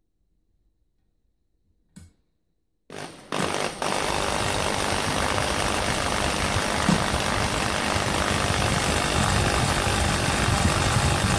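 Electric drill starting up about three seconds in, stuttering briefly, then running steadily as it drills a 4 mm hole in an aluminium bike rack.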